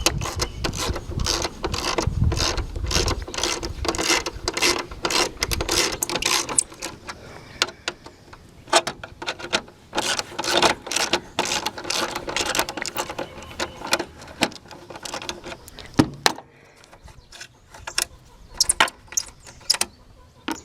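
Hand ratchet wrench clicking in quick runs, dense for the first several seconds, then scattered clicks and knocks that thin out and grow fainter near the end.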